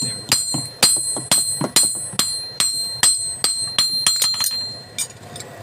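Hammer striking steel in a steady rhythm, about two blows a second, each blow leaving a bright metallic ring; the blows stop near the end.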